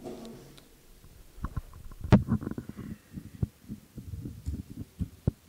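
Irregular run of soft clicks and knocks on a laptop keyboard as keys are pressed, with one sharper click about two seconds in.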